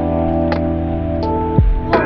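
Background music: held chords with a few low beat thumps, near the start and about one and a half seconds in.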